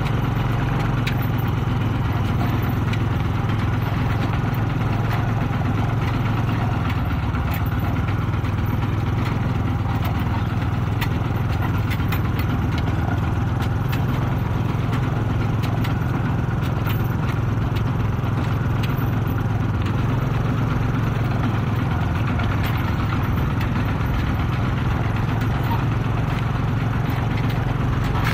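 Kubota RT-120 Plus single-cylinder diesel engine of a two-wheel tractor running steadily as it pulls a loaded trailer along a rough track, with frequent light rattles and clicks.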